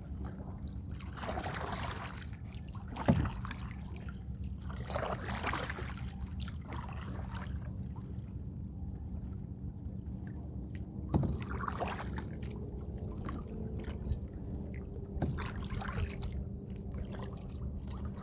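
Kayak paddle strokes: the blade swishing through the water every few seconds, with water trickling off it, and two sharp knocks, one about three seconds in and one about eleven seconds in. A steady low hum runs underneath.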